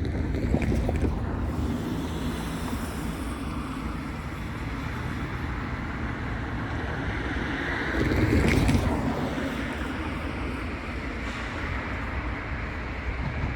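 A train rolling slowly past, a steady rumble with a low hum at first, and wind on the microphone. The noise swells briefly about two-thirds of the way through.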